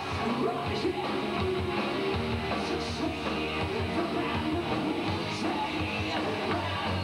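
Hard rock band playing live, electric guitar to the fore over bass, drums and repeated cymbal strikes.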